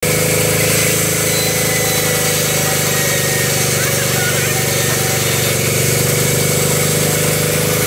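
Large vertical band sawmill running steadily, a constant machine hum with no break.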